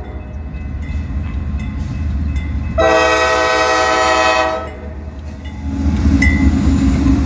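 Raised-letter K5LA five-chime air horn on GE C40-8W locomotive CSX 7793 sounding one long blast for the grade crossing about three seconds in. Near the end the diesel locomotive's low engine rumble swells as the lead unit nears, with a bell ringing faintly underneath.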